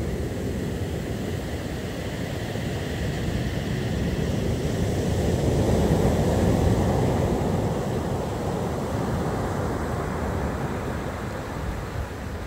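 Rough storm surf breaking on the shore: a big wave builds to its loudest crash about six seconds in, then washes back and eases.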